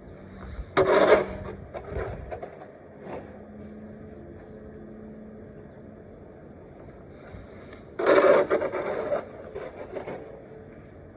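Two loud rasping scrapes in snow, about seven seconds apart, each followed by a few fainter scrapes.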